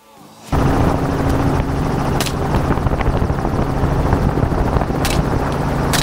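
Helicopter running steadily: a loud, even rotor and engine drone with a low hum, starting abruptly about half a second in after a brief gap. Two short sharp clicks cut through it, about two and five seconds in.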